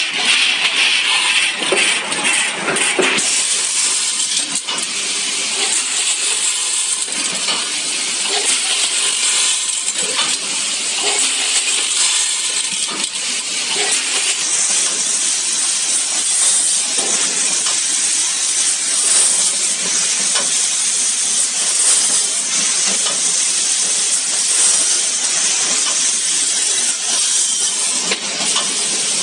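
Steel nails clattering and jingling continuously as a multihead combination weigher feeds them through its vibrating stainless-steel pans and weigh buckets: a dense metallic rattle made of many small clicks.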